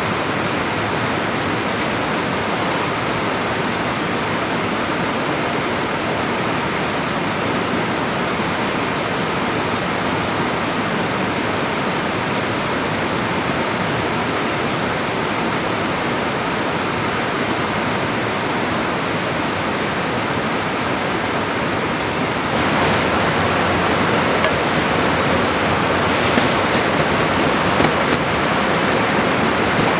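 A steady rushing noise that gets louder and brighter about two-thirds of the way through, with a few light clicks after.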